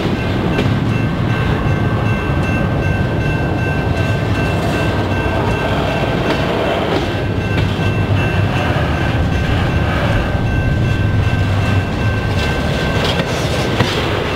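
A freight train's double-stack intermodal well cars rolling past close by: a steady rumble of steel wheels on rail, with wheel-on-joint clatter. A steady high-pitched tone runs over it.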